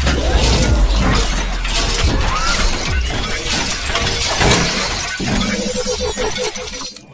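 Cinematic logo-intro sound effects: dense crashing and shattering noise with many sharp cracks over a deep bass rumble, and a wavering tone that comes in about five seconds in.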